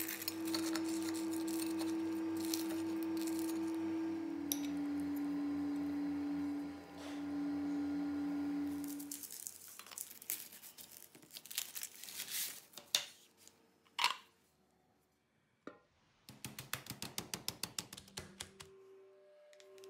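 Soft background music of held tones, one note stepping down to a lower one, under crisp crunching as a knife cuts through fried breadcrumb coating. Then knife knocks and clicks on a wooden cutting board as a red onion is cut, and near the end a quick run of clicks.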